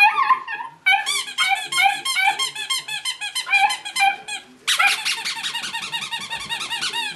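A puppy's short bark, then the squeaker in a plush toy cat squeezed over and over: regular squeaks at about four a second, and after a brief pause a faster, unbroken run of squeaking.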